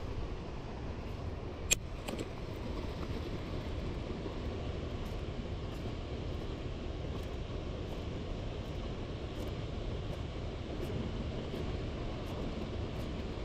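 Steady low rumble of the water flowing below a hydroelectric dam, with one sharp click about two seconds in.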